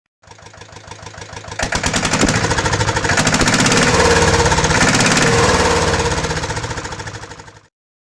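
Tractor engine starting up. Pulses build for about a second and a half, then it runs loud with a fast, steady knocking beat and fades out near the end.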